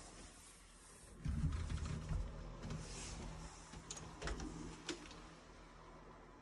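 A door being pushed shut with a low rumble, then a few sharp latch and doorknob clicks as a closet door is opened.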